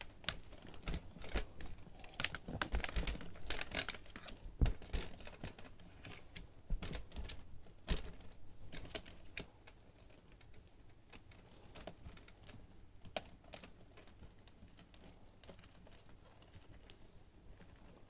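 Irregular sharp clicks, light knocks and rustling, busy at first and thinning out about halfway into sparse faint ticks.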